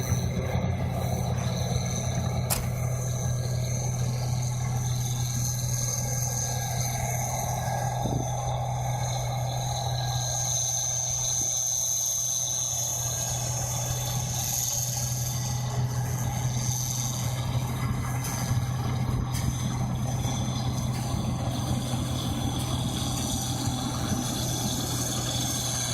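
Rice combine harvester running steadily: a constant low engine drone with a thin, steady high whine above it.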